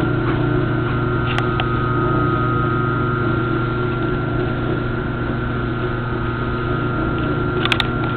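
Small motor running steadily, driving a hand cart's tire by friction against the tread to keep the wheel spinning and spread fix-a-flat sealant inside. A steady hum, with a couple of brief clicks.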